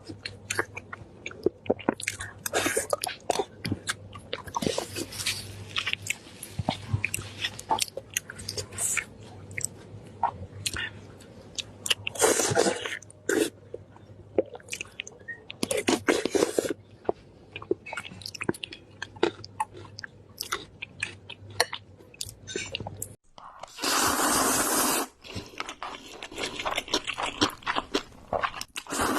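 Close-miked eating: a person chewing and biting food, with many crunchy bites. Several louder noisy stretches come through, the longest lasting about two seconds near the end.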